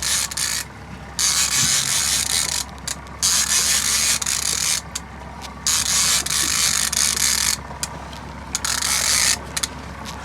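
Fishing reel being cranked in spurts with short pauses, its gears ratcheting, while a hooked dorado is reeled in. A steady low hum runs underneath.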